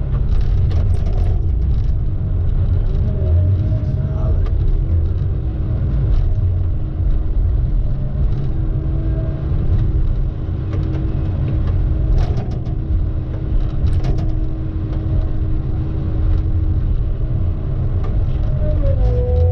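A vehicle driving: steady low engine and road rumble with no breaks, and faint steady tones over it.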